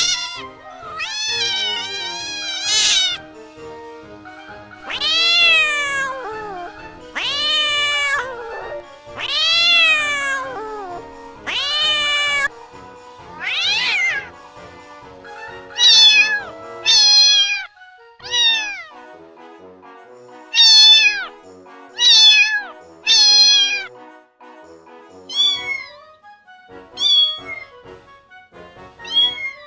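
Domestic cat meowing again and again, about twenty calls: long rising-and-falling meows in the first half, shorter ones falling in pitch later. Background music with sustained notes plays underneath.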